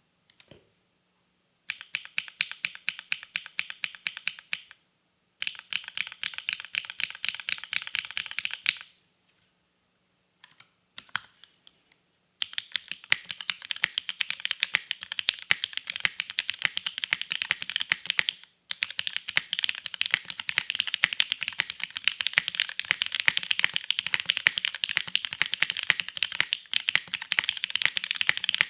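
Fast typing on a custom mechanical keyboard (Adamas 65, aluminium plate, top mount) with lubed Cherry Retooled Black linear switches and GMK keycaps: dense, rapid key clacks in two short bursts, a few scattered keystrokes, then steady continuous typing from about halfway through.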